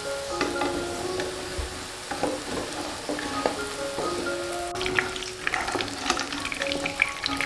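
Tofu cubes sizzling as they fry in oil in a wok, with clicks and scrapes of a wooden spatula and wire skimmer, much busier from about five seconds in as the cubes are scooped out to drain. Soft background music plays over it.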